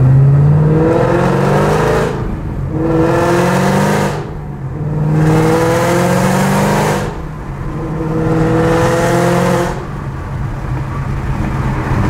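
2014 Shelby GT500's supercharged V8 with aftermarket headers accelerating through the gears, heard from inside the cabin: four pulls rising in pitch, each broken by a brief lift and a drop in pitch at the gear change. It eases off to a steadier, quieter run about two seconds before the end.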